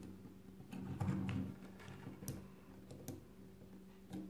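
Small plastic toy wheelchair rolling on a wooden tabletop, its little wheels giving a low rumble, with several light plastic clicks and taps as the toy and its figure are handled.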